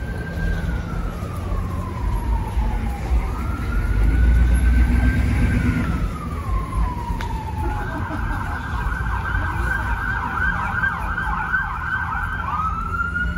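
Emergency vehicle siren wailing in slow rising and falling sweeps, switching a little past halfway to a fast yelp, then back to the slow wail near the end. A low rumble of street traffic runs underneath.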